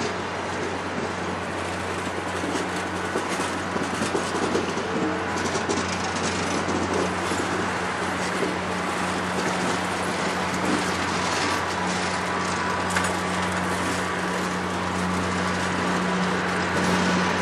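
Passenger train of stainless-steel cars rolling past: a steady rumble of steel wheels on the rails, with a few clicks over the rail joints and a steady low hum underneath.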